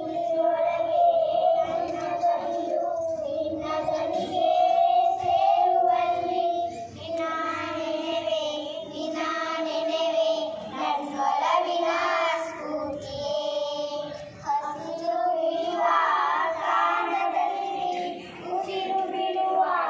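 A group of schoolgirls singing together into a microphone.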